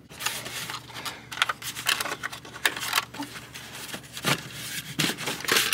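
Hands working a tractor's air cleaner housing: a run of irregular clicks, knocks and scrapes as the cover is unclipped and pulled off to reach the filter, with a sharper knock about four seconds in and another near the end.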